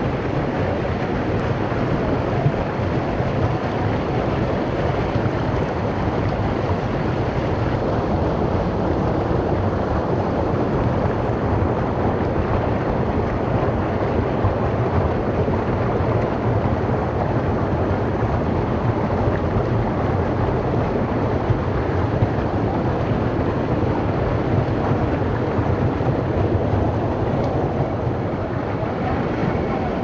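Steady rush of a small waterfall and shallow stream flowing over rock.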